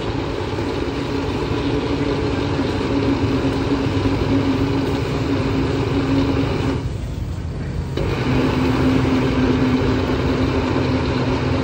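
Electric countertop blender motor running steadily with a steady hum, its jar covered with a cloth. About seven seconds in it stops for roughly a second, then starts up again.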